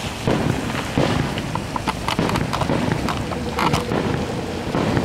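Distant aerial fireworks going off: irregular muffled booms mixed with a scatter of sharp crackling pops, over a steady low rumble.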